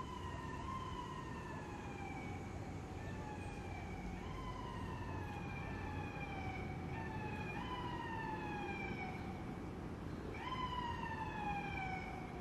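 An emergency vehicle's siren wailing: each cycle rises quickly and then slides slowly down in pitch, repeating about every two seconds, with cycles overlapping at times. It gets a little louder near the end, over a low steady rumble.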